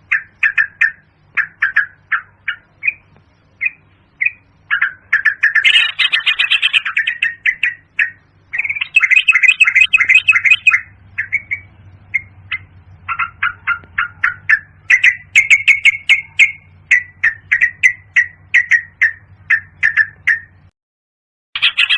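Yellow-vented bulbul calling: a quick series of short chirping notes, breaking into denser, louder chattering around six and ten seconds in, over a low steady hum. The calls stop for about a second near the end, then start again.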